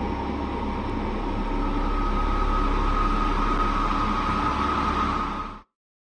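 Steady rumbling noise with a held high tone running through it, which cuts off abruptly about five and a half seconds in.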